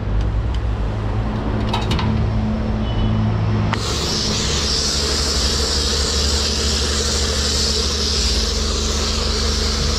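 Self-service car wash foam lance spraying, starting suddenly about four seconds in as a loud, steady hiss of pressurised foam and water. Before it, a low steady hum and a few light clicks.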